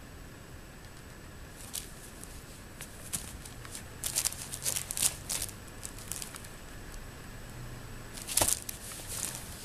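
Cat paws and claws rustling and scratching on the nylon fabric of a pop-up cat play tent, in short crinkly bursts, busiest around the middle and loudest about eight seconds in.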